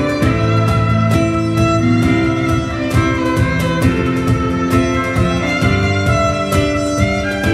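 Violin playing a melody over a band with a steady drum beat.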